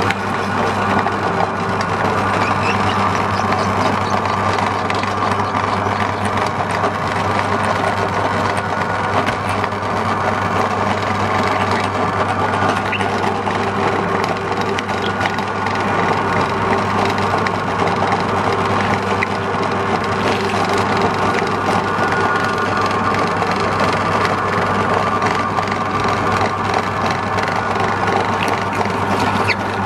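Motor-driven meat grinder running steadily with a low hum, its auger crushing green bell peppers pressed down the hopper with a wooden pusher, with scattered small crackles throughout.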